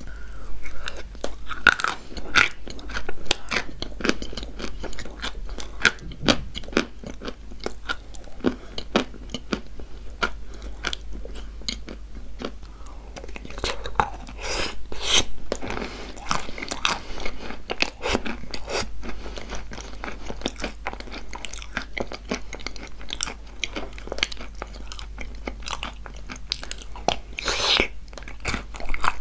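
Close-up biting and chewing of dry chalk coated in kaolin clay paste: dense, crisp crunching with no let-up, with louder bites about halfway through and near the end.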